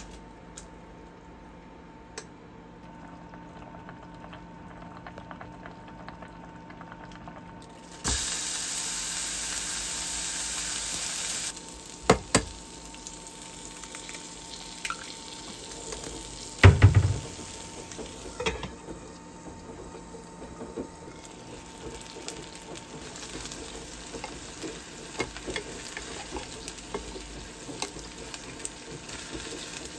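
Cooking in a frying pan: a few seconds of loud steady rushing noise about a quarter of the way in, then knocks, the loudest about halfway as an egg is cracked into the pan. After that comes the light, steady sizzle of the egg frying beside a hamburg steak patty.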